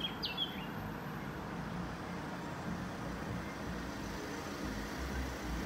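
Low, steady rumble of road vehicle engines, with a few bird chirps right at the start.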